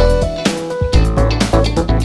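Upbeat background music with guitar, bass and a steady beat.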